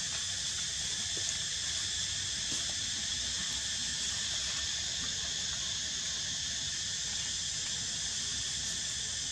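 Steady high-pitched drone of an insect chorus, even and unbroken, over a low rumble.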